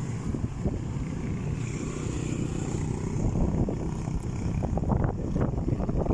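A motor vehicle running, with a steady low rumble and a few louder flares near the end.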